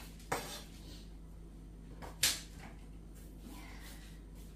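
Kitchen knife chopping an onion on a wooden cutting board: two sharp knocks about two seconds apart.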